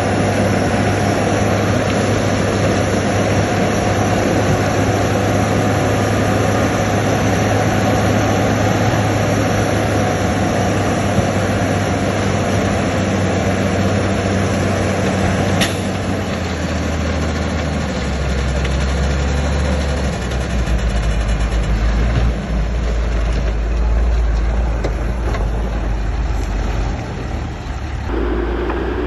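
Diesel engines of heavy earthmoving machinery running continuously, with a sharp click about two-thirds of the way through and the engine note dropping to a lower, steadier drone after it.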